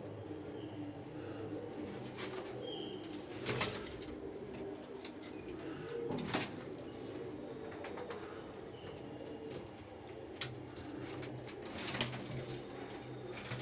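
Several domestic pigeons cooing steadily together, with three short sharp clatters, the loudest about six seconds in.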